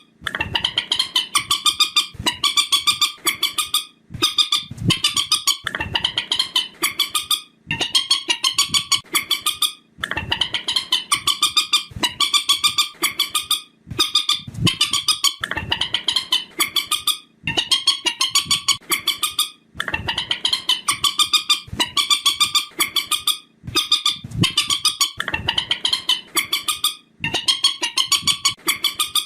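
Looped lure recording of the call of the bird Vietnamese trappers call 'trích ré': rapid chattering phrases of about two seconds each, repeated over and over with short breaks between them.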